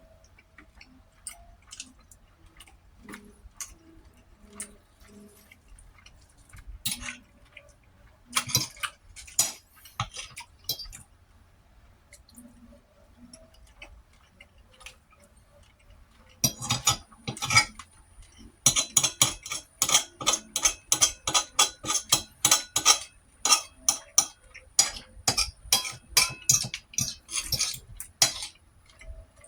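Close-miked eating at a plate: scattered clinks of utensils on dishes, then from about halfway a fast, steady run of sharp clicks, several a second.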